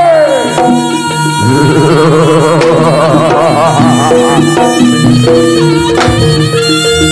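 Live Javanese jaranan ensemble music played loud: drums keep a beat under held melody notes, one sliding down at the start and a wavering line in the middle.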